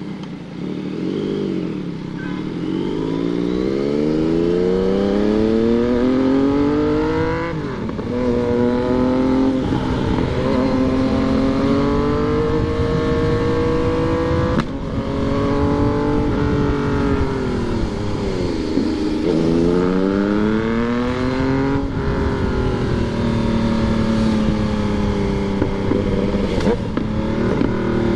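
Yamaha MT-09 three-cylinder motorcycle engine accelerating hard, its pitch climbing through the revs and dropping sharply at gear changes twice. It eases off and slows for a few seconds past the middle, then pulls up again and settles to a steady cruise, with wind noise throughout.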